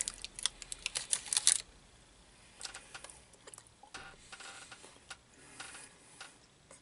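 Crinkling of a protein bar's wrapper, a rapid run of sharp crackles for about the first second and a half, then a bite and soft chewing.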